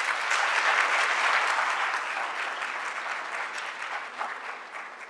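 Audience applauding, loudest about a second in, then fading away gradually.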